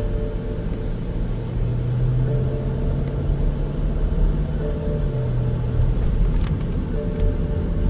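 BMW E70 X5 M on the move, its twin-turbo V8 and the road making a steady low rumble, with a held engine note that rises a little a couple of seconds in.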